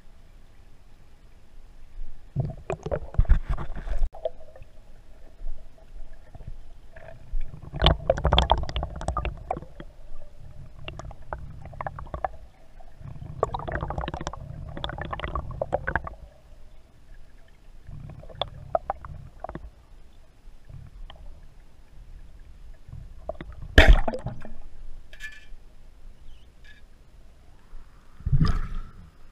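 Underwater sloshing and gurgling from a swimmer's movements, then about 24 s in a single sharp crack as a Bluetec Raptor 115 speargun is fired, the loudest sound. Another burst of water noise comes near the end as the camera breaks the surface.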